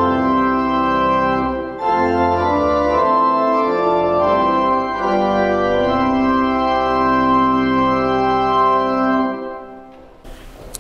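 Organ playing the last lines of a hymn in sustained chords, which stop about nine and a half seconds in and ring away in the room.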